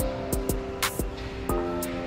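Background music with a beat: held instrument notes over regular drum hits.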